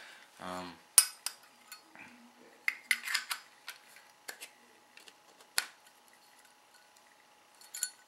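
Metal Zippo lighter case and insert being handled: a string of sharp metallic clicks and clinks, the loudest about a second in.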